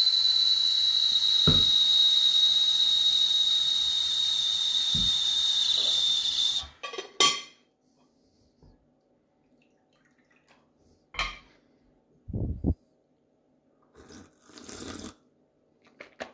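Steam venting from the boiler of a Wilesco D16el toy steam engine: a steady high whistle over a hiss, the pitch sagging slightly, cutting off suddenly about seven seconds in. After it, a few separate knocks and clinks as a cast-iron teapot and cup are set down on a cloth-covered table.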